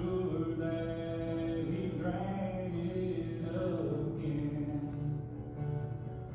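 Slow song with singing: a voice holding long notes over musical accompaniment.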